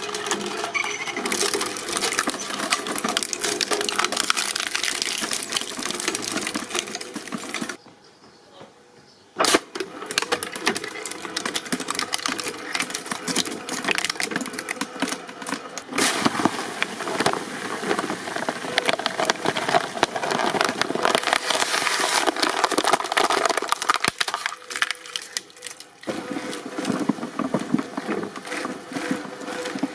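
Objects crackling and snapping as they are crushed in a press, a dense run of small cracks over a low steady machine hum. The crunching stops for about a second and a half around eight seconds in, then resumes with a sharp crack.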